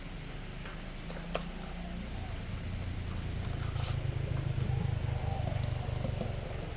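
A motor vehicle's engine rumbling low, growing louder towards the middle and then easing off, with a few sharp clicks.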